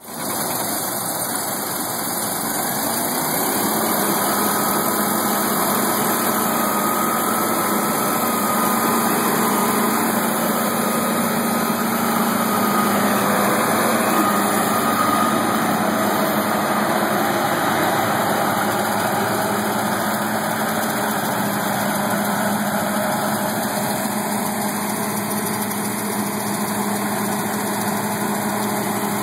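Combine harvester's diesel engine running steadily: a constant machine drone with a low hum that sets in a few seconds in.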